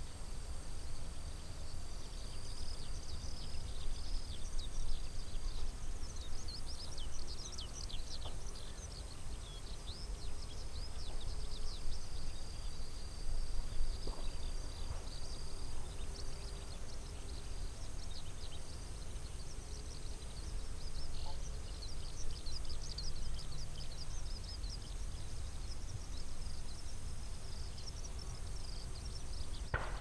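Outdoor ambience: a low wind rumble under continuous high-pitched chirping from small animals. Right at the end comes one faint sharp crack, a bird-scaring blank shot fired to drive black kites away from the airfield.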